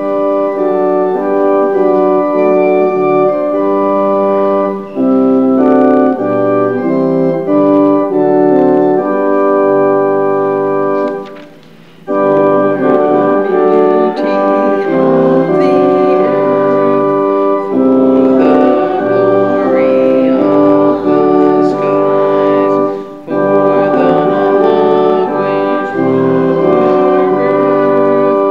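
Organ playing a hymn tune in held chords, in phrases with short breaks between them, the longest about twelve seconds in.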